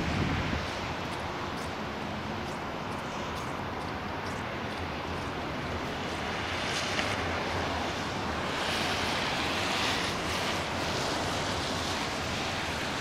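Steady wind noise on the microphone, an even rushing hiss that swells a little in the second half.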